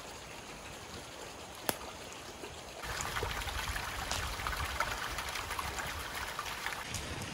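Creek water running steadily over rocks, louder and fuller from about three seconds in. A single sharp click sounds about two seconds in.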